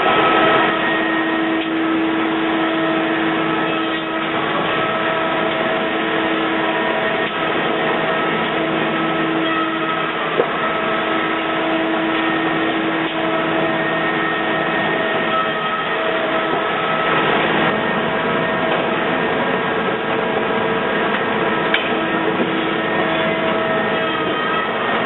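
Ledinek Eurozink 12 finger jointing line running: a constant mechanical hum of motors and cutters, with several steady whines that come and go. There is a sharp click about ten seconds in.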